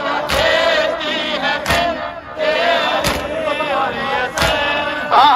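Matam: a crowd of men striking their chests in unison, one sharp slap about every second and a half. Under it a male voice sings a nauha lament with long, wavering held notes over a loudspeaker, joined by the crowd chanting.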